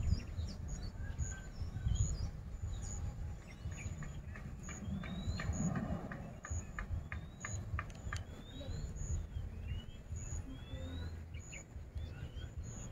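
Small birds chirping outdoors: short upward-sliding chirps every second or so, with brief high notes repeating, over a low rumble.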